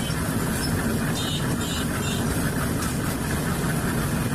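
Portable concrete drum mixer running, its rotating drum churning a wet mix of sand, cement and brick chips with a steady, loud grinding noise as a basket of brick chips is tipped in.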